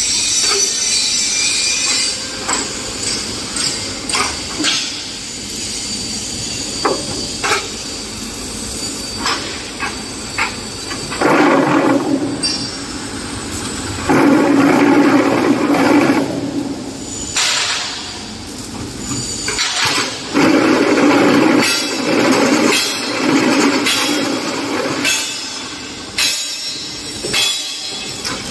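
QTJ4-25D automatic concrete block making machine running through its moulding cycle: metal clanks and rattles of the mould and pallets, broken by long, louder stretches of buzzing from the vibrating table compacting the concrete, the first about eleven seconds in.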